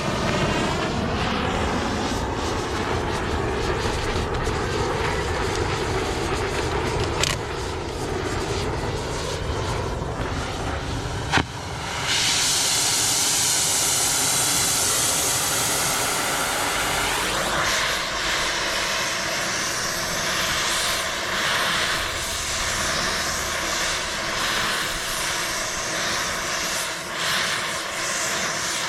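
A motor running steadily, with a brief rising sweep in pitch about 17 seconds in.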